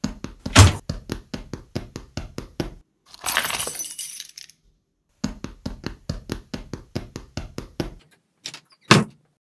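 Cartoon sound effects: a fast run of sharp taps, then a crash of breaking glass, then another run of taps. Near the end a door bangs shut with a knock and a low thud.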